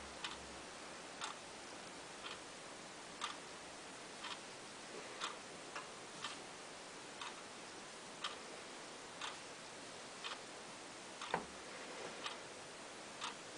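Light, regular ticking about once a second over a faint steady hiss, with one louder knock about four-fifths of the way through.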